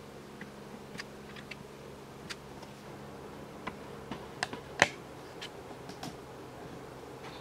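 Scattered small clicks and ticks from hands handling plastic parts and tape, irregular and a few a second, with one sharper click just under five seconds in, over a faint steady low hum.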